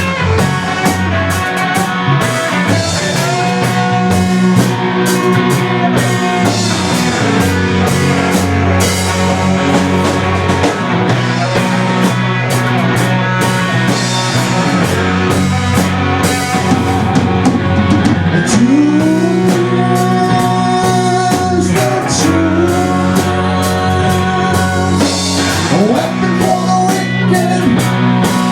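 Rock band playing an instrumental passage: electric guitar over drums and bass, with the guitar bending notes upward a few times.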